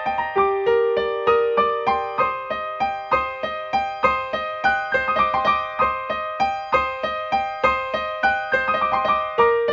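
Background music: piano notes played in a steady, flowing run, about three notes a second.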